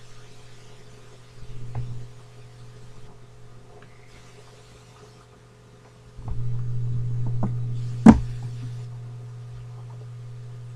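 Steady low hum with a faint hiss, swelling louder for about two seconds from six seconds in, and a single sharp knock about eight seconds in.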